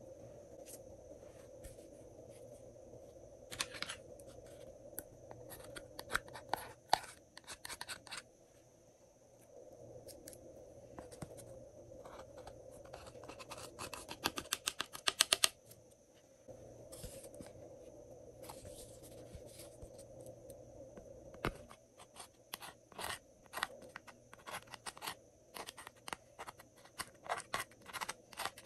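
A thin metal tool scraping and clicking in the pans of a plastic makeup palette, digging out pressed eyeshadow and cream colour. It comes in irregular runs of sharp scratches and taps, with the fastest run about halfway through, over a steady faint hum.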